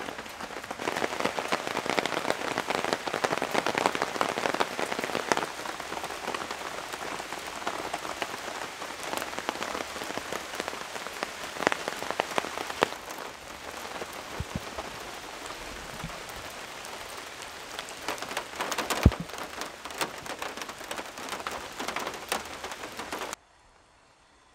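Steady rain, a dense patter of many small drops striking close by, heaviest in the first few seconds and easing after. One sharper, louder tap stands out about 19 seconds in, and the rain cuts off abruptly near the end.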